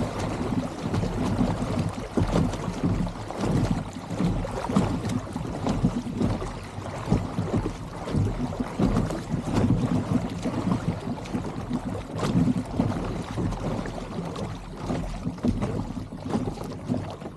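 Gulf water lapping and slapping unevenly against a fishing kayak's hull as it drifts, with wind buffeting the microphone.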